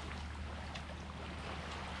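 Sea water washing and fizzing in small ticks over a steady low rumble.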